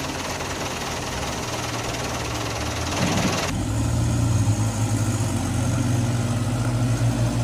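Bus engine idling sound effect: a steady low hum under a rumbling hiss. About halfway through, the hiss drops away and the hum grows louder. It starts and cuts off abruptly.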